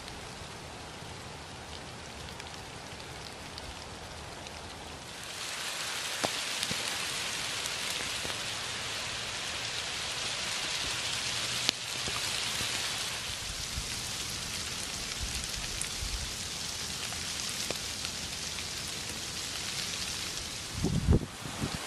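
Steady rain falling on the leaves of fruit trees, a constant patter that gets louder about five seconds in. A few low thumps near the end.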